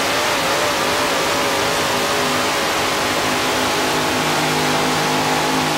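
Supercharged engine of a mini modified pulling tractor running flat out under load as it drags the weight-transfer sled, a loud, steady high-revving drone.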